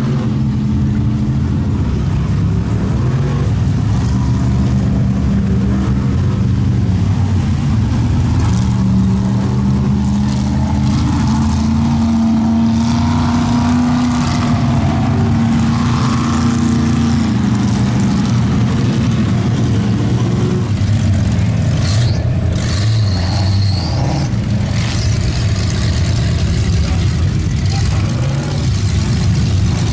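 Off-road vehicle engine running loud and steady under load, its pitch climbing slowly through the middle and dropping back near the end.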